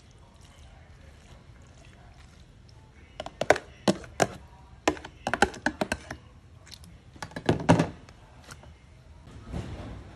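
A metal utensil knocking and scraping against a plastic container as raw sliced beef is pushed out of it onto salad greens: a run of sharp irregular taps through the middle, then a softer rustle near the end.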